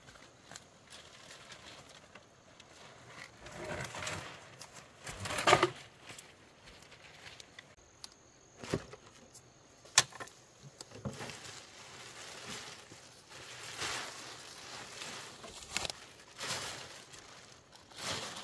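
Irregular rustling and crackling, with a few sharp knocks.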